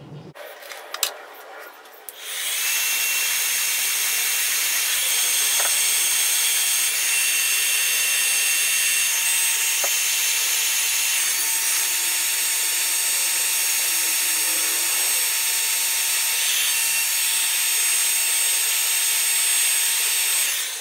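Electric heat gun switched on about two seconds in and running steadily, its fan blowing with a steady whine, as it heats a heat-shrink butt connector on a wire. It shuts off at the very end.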